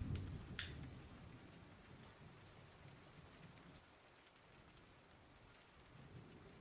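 Faint steady rain. A low rumble fades away over the first few seconds, and two sharp ticks come near the start.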